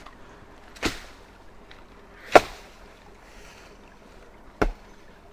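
A fence post being pounded into the ground: three sharp strikes about a second and a half to two seconds apart, the second the loudest.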